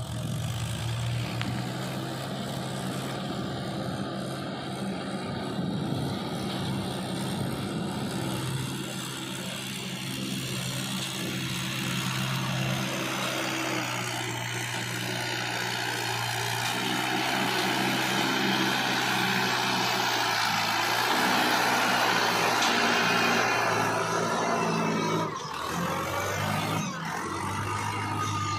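Swaraj farm tractor diesel engines running steadily under load, hauling sand-laden trailers through shallow river water, with water splashing around the wheels.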